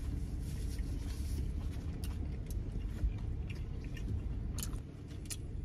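A person chewing a mouthful of carne asada burrito, with small soft mouth clicks, over a steady low hum.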